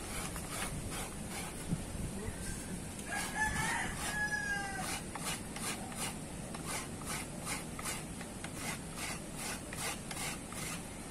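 Coconut being grated: a steady rhythm of scraping strokes, a little over two a second. A rooster crows about three seconds in.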